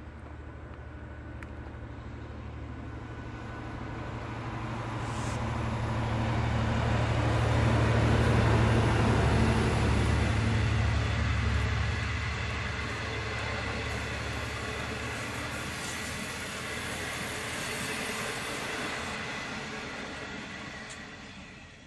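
Diesel-hauled train passing by. The locomotive engine drone builds to its loudest about eight to ten seconds in, with steady whines from wheels and machinery above it, then slowly fades as the train moves away.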